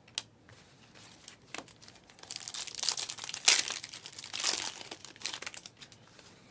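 Panini Prizm trading-card pack wrapper crinkling and tearing open, a run of crackly rustles loudest in the middle, after a few light clicks of cards being handled.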